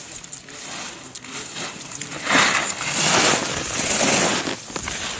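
Skis carving on groomed snow: a scraping hiss of edges on snow that swells loud a little after two seconds in and eases off about a second before the end.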